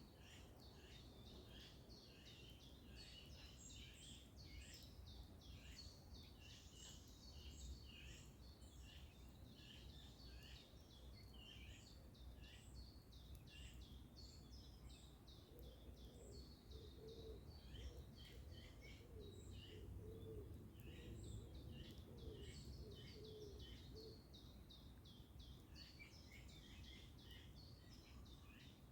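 Many small songbirds chirping and singing, faint and continuous, over a steady low background rumble. Through the middle, a run of short low notes joins in for several seconds.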